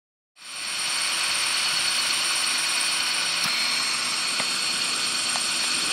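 Motors of a soccer-ball launching machine running steadily with a high whine, cutting in abruptly; a faint click about three and a half seconds in.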